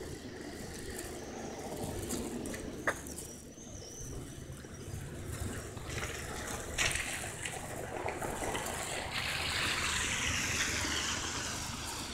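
Street noise with road traffic passing, one vehicle swelling up and fading about two-thirds of the way in, and two short sharp knocks.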